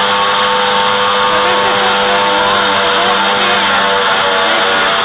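Rock drilling rig drilling into rock in a mine, a phone recording played back loud over a lecture hall's speakers: a steady machine noise with constant whining tones.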